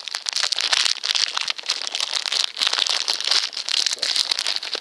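Plastic packaging crinkling and crackling steadily as it is handled, a dense run of irregular crackles.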